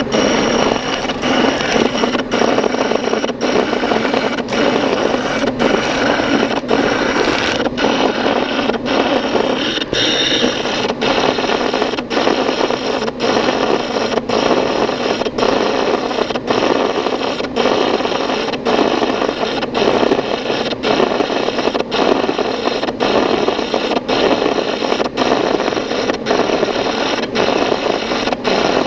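A long boring tool cutting the bore of a vacuum compressor housing on a running machine: a steady grinding cutting noise, broken by a short regular gap about once a second.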